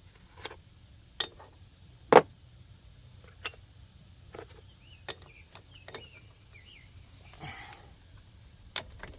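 Scattered metal clinks and knocks of hand tools and parts being handled during CV axle removal on an ATV, about a dozen separate strikes, the loudest about two seconds in.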